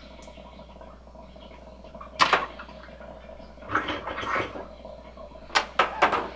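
Sucking by mouth on a water softener's plastic brine-draw tube. There is one sharp suck about two seconds in, a longer airy draw around four seconds, and a few quick sucks near the end. The line pulls only air and no brine, so the softener's brine draw is not working.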